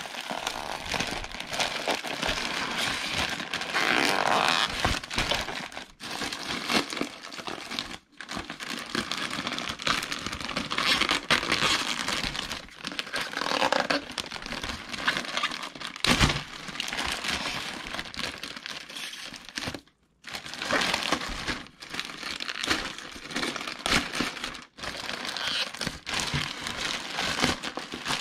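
Packaging being handled and unwrapped, crinkling and rustling in irregular handfuls with short pauses, and a single sharp knock about halfway through.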